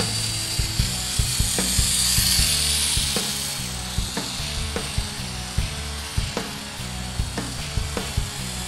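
Background music with a steady beat, about five beats every four seconds, over the high-pitched buzz of a micro electric RC airplane's motor in flight.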